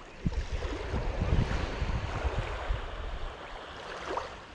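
A gust of wind buffeting the microphone over the wash of small waves at the water's edge on a sandy beach; it comes up suddenly just after the start and eases off near the end.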